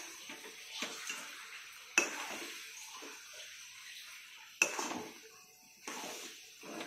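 Metal spatula and spoon scraping and stirring a thick tamarind-and-jaggery pickle in a steel kadai, with three sharp ringing clinks of metal on steel about two, four and a half, and six seconds in.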